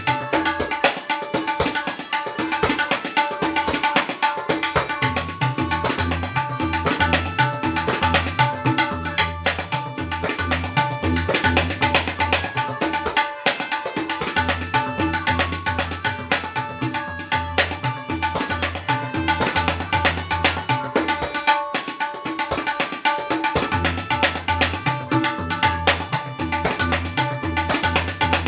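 Solo tabla playing in teentaal: fast, dense strokes on the dayan mixed with deep, recurring bass strokes on the bayan. Underneath runs a melodic accompaniment with held notes.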